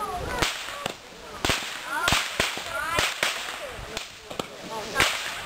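Fireworks going off: a string of sharp cracks, about seven in five and a half seconds at uneven intervals.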